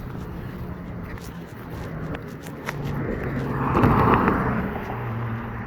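A car driving past on the road at the crossing; its noise swells to a peak about four seconds in and then fades.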